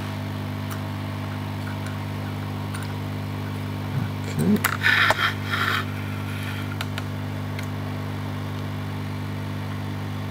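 Hot-air rework blower running with a steady hum. About five seconds in there is a brief scratchy scrape, as the thin metal pick works under the heated chip.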